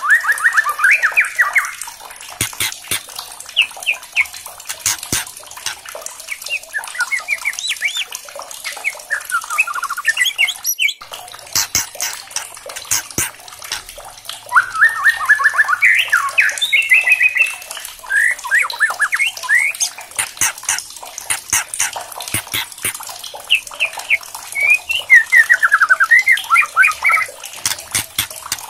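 White-rumped shama singing: bouts of fast, quavering trilled phrases broken up by a great many sharp, dry clicks and cracks, the harsh 'kretekan' notes of an excited bird.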